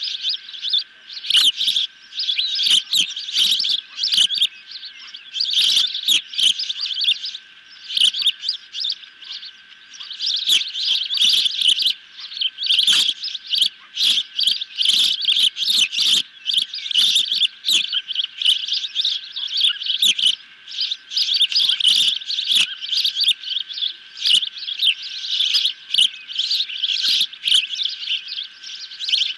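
Ospreys calling on the nest: rapid, repeated high-pitched chirps in near-continuous runs with short lulls. A faint steady tone hums underneath.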